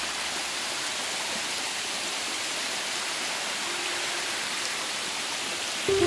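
Waterfall water rushing steadily down a broad, shallow rock cascade.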